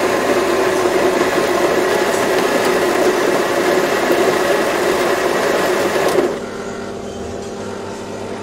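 Espresso machine running with a loud, steady buzz that drops to a quieter hum about six seconds in.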